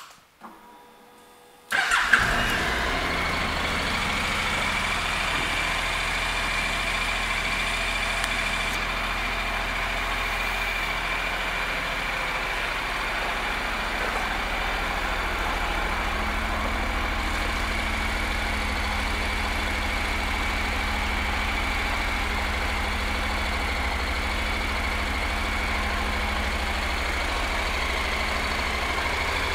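2013 Honda NC700XD's 670 cc parallel-twin engine starting about two seconds in, then idling steadily.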